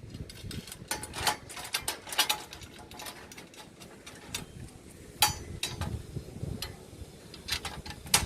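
Irregular sharp clicks and knocks of metal parts and hand tools being handled, about a dozen, the loudest about two seconds in and again about five seconds in.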